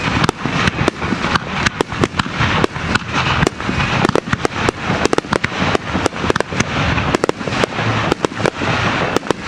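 Aerial fireworks shells bursting in quick succession: a dense, irregular run of sharp bangs and crackles, several a second.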